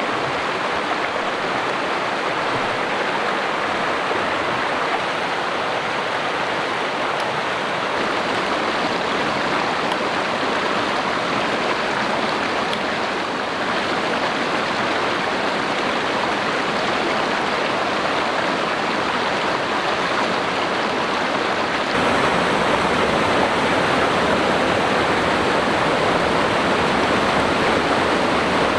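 Mountain creek rushing and cascading over boulders: a steady, loud wash of water noise that gets a little louder about three-quarters of the way through.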